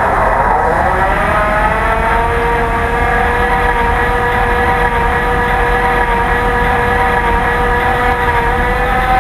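Sound decoder in an HO scale model SD40-2 playing the startup of an EMD turbocharged 16-645 diesel prime mover with an unsilenced exhaust, heard through the model's small onboard speaker. The engine runs with its pitch falling over the first couple of seconds, then holds steady at a fast throttle before settling to idle.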